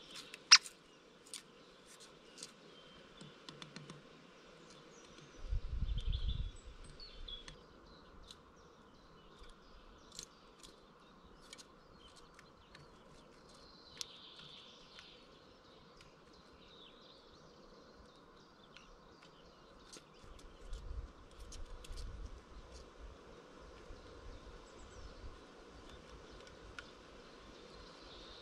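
Great spotted woodpecker's bill tapping dead wood in scattered, irregular sharp taps, the loudest a single sharp knock about half a second in. Faint birdsong runs behind it, with two spells of low wind rumble on the microphone.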